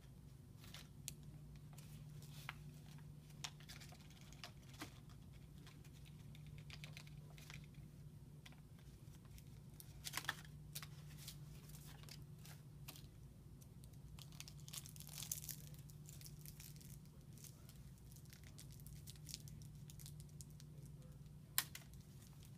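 Faint paper-and-plastic sterile supply packets being peeled open and crinkled, with scattered rustles and louder crackles about ten and fifteen seconds in, over a low steady hum.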